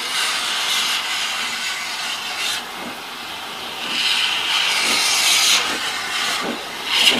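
Steam hissing from the open cylinder drain cocks of Double Fairlie 0-4-4-0T steam locomotive No.10 'Merddin Emrys' as it starts away. The hiss swells about halfway through, and the first faint exhaust beats come in near the end.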